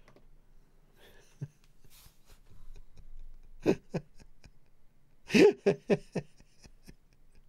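A man chuckling quietly to himself: a few short, breathy laughs, with the loudest run about five and a half seconds in.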